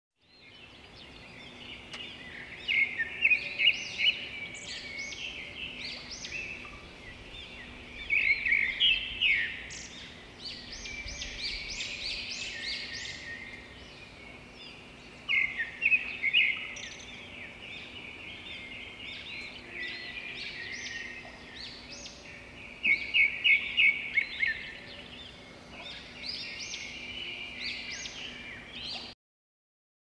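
Caged lovebirds chirping and chattering in shrill, high calls, with loud bursts of rapid repeated chirps every five to eight seconds. A faint steady hum runs underneath.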